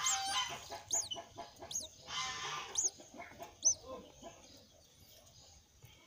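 Cuckoo nestling begging: two short rasping bursts, the first at the start and the second about two seconds in, among thin high chirps repeating roughly once a second. Chickens cluck in the background, and the sounds die down over the last two seconds.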